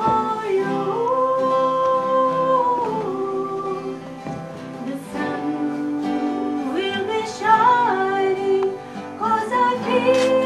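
A woman singing a slow ballad over acoustic guitar, holding long, smooth notes.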